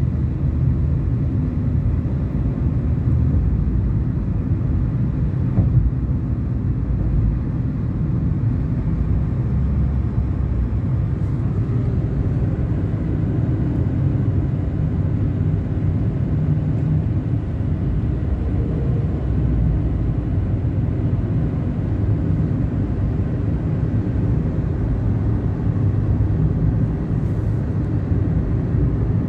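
A car driving along the road: a steady low rumble of tyres and engine, with one small knock about six seconds in.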